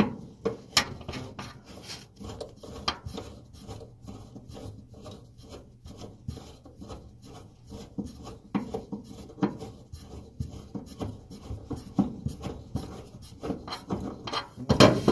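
Irregular scraping and clicking of hand work on a Samsung dryer's idler pulley arm as its single screw is backed out by hand, with no power tool running. A louder clatter comes near the end.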